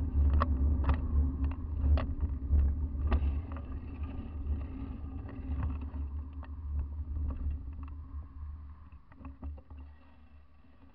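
Wind buffeting and road rumble on a bicycle-mounted action camera while riding, with scattered sharp clicks and rattles. The rumble fades away over the second half as the bike slows to a stop.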